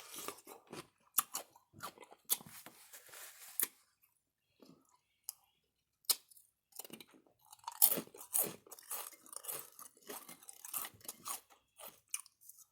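Crunchy bites and close-miked chewing of a kosher dill pickle, in clusters with a quiet pause in the middle.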